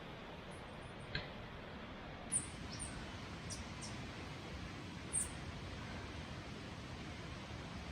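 Small birds giving short, very high chirps, half a dozen times, over a steady background hiss, with a couple of soft clicks.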